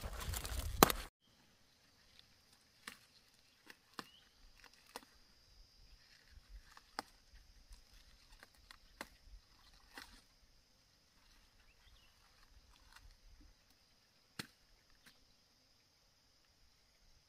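Close rustling and crackling of cabbage leaves as a freshly cut head is handled, cut off abruptly about a second in. Then a quiet steady high insect buzz, with scattered faint clicks and knocks.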